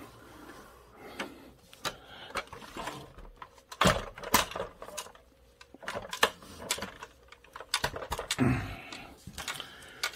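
Hard plastic toy parts clicking and clattering as a large Power Rangers Shogun Ultrazord toy is handled and adjusted, with a few louder knocks about four seconds in and again about six seconds in, and a dull thump near the end.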